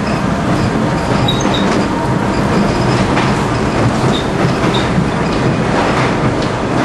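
New York City subway train running, a loud steady rumble with the wheels clacking over the rails and a few brief high squeals from the wheels.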